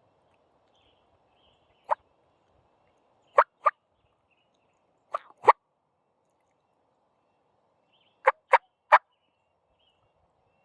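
Wild turkey calling: short, sharp, loud notes, first one, then two pairs, then three in quick succession near the end.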